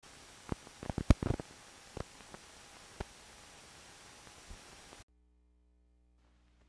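Static-like hiss with scattered sharp clicks and pops, an old-film crackle effect; the pops cluster about one second in. It cuts off abruptly about five seconds in, leaving near silence with a faint low hum.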